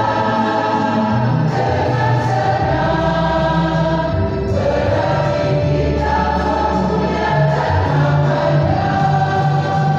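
A mixed church choir of women and men singing a gospel hymn together, over an accompaniment with sustained low bass notes that change in steps.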